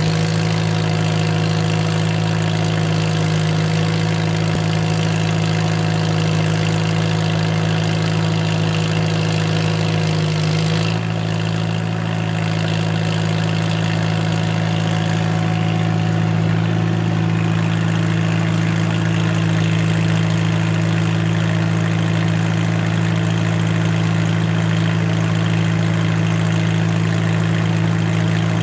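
Farmall H tractor's four-cylinder engine running steadily while belt-driving a sawmill; the tone shifts slightly about eleven seconds in.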